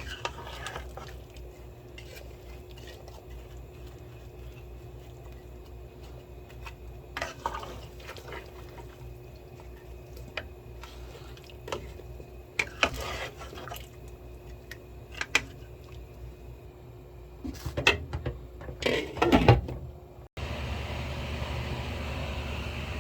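Kitchen utensils knocking and clinking against a cooking pot now and then, with a cluster of louder clatters near the end, over a steady low hum. About twenty seconds in the background switches abruptly to a louder steady rumble.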